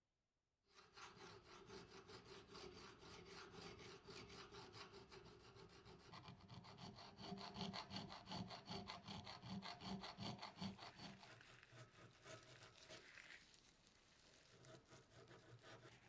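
A hand file rasping across the brass body of an antique lighter in quick back-and-forth strokes. Near the end it gives way to a softer rubbing.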